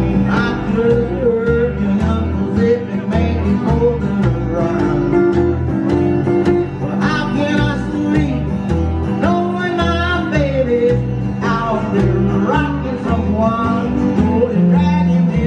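Live country band playing: strummed acoustic guitar and upright bass under a man singing, with a steady beat.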